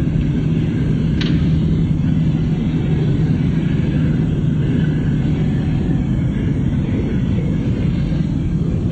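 Car engine and road noise, a steady low rumble heard from inside the moving vehicle's cabin, with one brief click about a second in.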